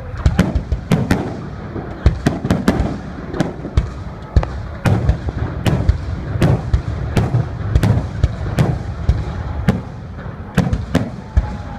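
Fireworks display: a rapid, irregular barrage of shell bursts, several bangs a second, each trailing a short echo over a continuous low rumble.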